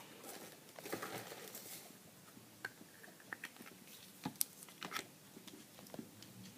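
Slime being squeezed and poked by hand, giving faint scattered clicks and soft wet pops, with a few sharper clicks around the middle.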